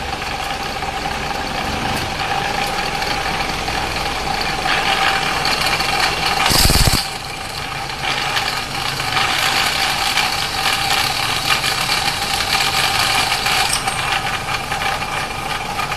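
Car running with a steady hum and whine from its differential, the growl ('ngorok') of a noisy differential. A brief loud rush cuts in about six and a half seconds in.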